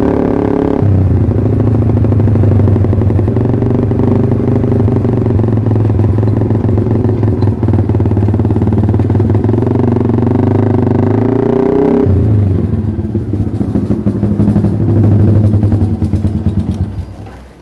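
Yamaha R15 V3's 155 cc single-cylinder engine running through a Pro Liner TR1 aftermarket exhaust. The revs drop about a second in and hold steady, climb briefly and fall back sharply about two-thirds of the way through, and the sound dies away near the end.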